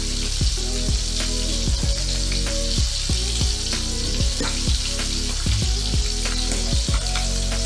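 Bilong-bilong fish frying in hot oil in a wok, with a steady sizzle. Background music with a steady beat plays under it.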